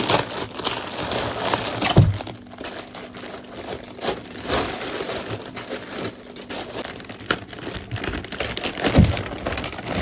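Plastic mailing bags crinkling and rustling as they are handled and pulled open, with two dull thumps, about 2 s and 9 s in.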